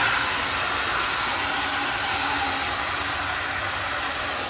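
Water running into a wash bucket holding car-wash soap, a steady rushing hiss as the bucket fills.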